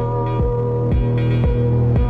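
Electronic background music: sustained synth tones over a steady deep kick drum that thumps about twice a second.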